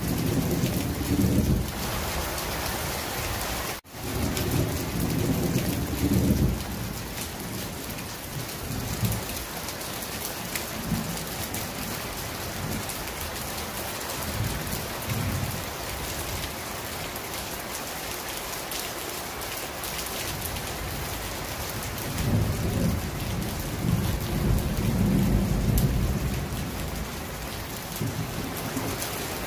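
Heavy rain pouring down steadily, with thunder rolling low several times: near the start, again about four to six seconds in, and a long roll about two-thirds of the way through. The sound cuts out for an instant just before four seconds in.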